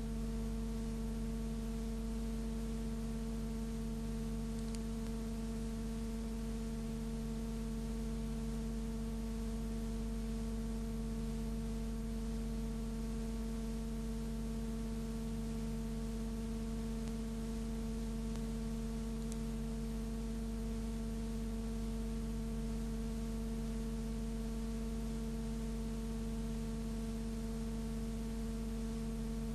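Steady electrical hum with a stack of overtones over faint hiss, unchanging throughout. It is a fault of the soundtrack, not the trams.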